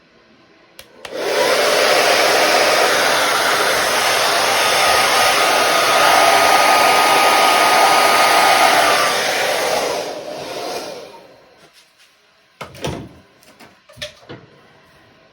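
Handheld hair dryer switched on about a second in and running steadily for about nine seconds, then switched off and winding down. A few light knocks follow near the end.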